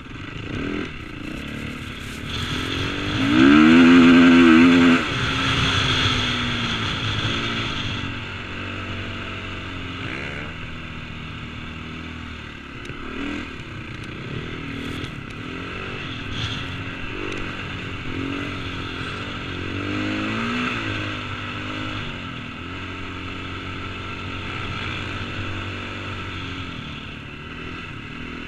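KTM 450 four-stroke single-cylinder motocross bike engine, revved up and down repeatedly while riding over sand dunes, heard from a helmet-mounted camera. The hardest rev comes about three to five seconds in and is the loudest part.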